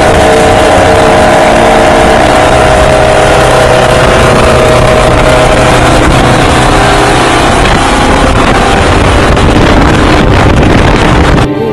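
Motor vehicle engine and road noise at cruising speed, heavily overlaid by wind buffeting the microphone. The sound cuts off abruptly right at the end.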